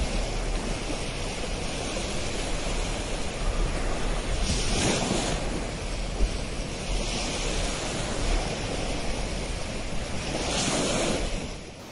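Sea surf washing ashore in slow surges, with wind rumbling on the microphone.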